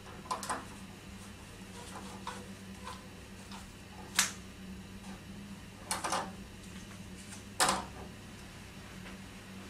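Wooden Venetian blinds being lowered and closed by their cord: a few sharp clacks and rattles of the slats, the sharpest about four seconds in and again near the end, over a steady low hum.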